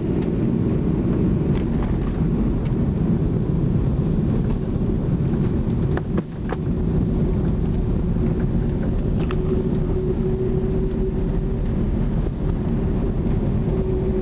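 Airliner on its landing roll, heard from inside the cabin: a loud, steady rumble of engines and wheels on the runway. A few short clicks come about six seconds in and again around nine seconds, and a steady hum stands out in the second half.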